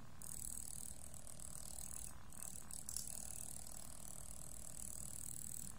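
Small DC motor of a homemade magnetic stirrer running steadily at full speed, about 2400 RPM, with a faint high-pitched whir and a low hum.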